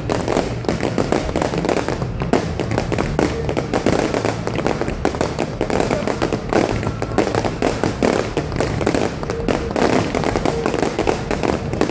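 Fireworks display going off in a dense, unbroken run of rapid bangs and crackles.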